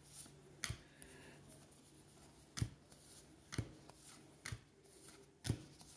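Baseball trading cards flipped one at a time by hand: about half a dozen faint, sharp flicks at irregular intervals, roughly a second apart.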